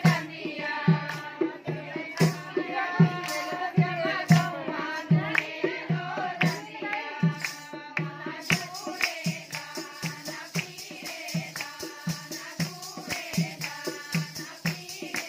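A group of women singing a Himachali Pahari folk song for gidda dancing, over a steady drum beat of roughly one and a half strokes a second with hand clapping. About halfway through, a quicker run of sharp claps or jingles joins in and the rhythm livens up.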